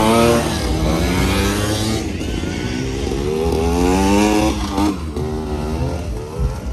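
Vespa scooter engines revving hard in a dirt-track race, their pitch climbing and dropping again and again as the riders accelerate and ease off.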